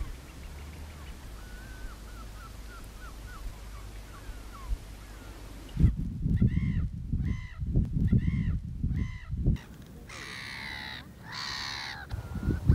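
Birds calling over the mudflats: faint short chirps at first, then about halfway a run of short, harsh calls, followed by two longer, rougher calls near the end. Wind rumbles on the microphone during the harsh calls.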